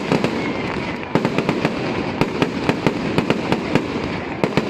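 Fireworks going off: a rapid, irregular string of sharp cracks and bangs over a steady hiss.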